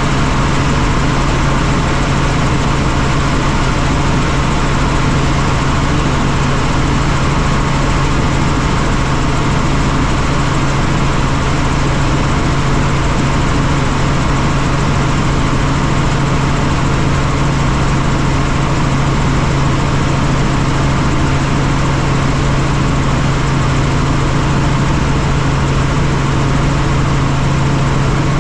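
Helicopter running steadily in flight: a constant engine and rotor noise with a strong, even low hum, unchanging throughout.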